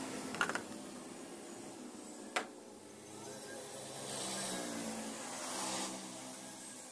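Metal parts of a disassembled electric hand planer clicking and knocking as they are handled: a few small clicks about half a second in and one sharp click a little past two seconds, with rubbing handling noise later, over a steady background hum.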